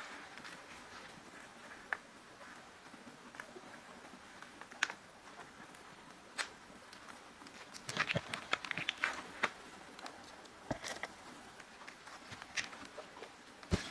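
A paper gift bag being unwrapped from its white paper wrapping and clear plastic sleeve: paper and plastic rustling and crinkling, with scattered small ticks and a busier stretch of crinkling a little past the middle.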